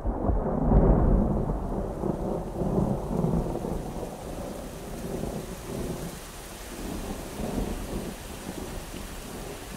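A deep rolling rumble over a steady hiss, like a thunderstorm, opening the studio recording. It starts suddenly, is loudest about a second in, and slowly dies away.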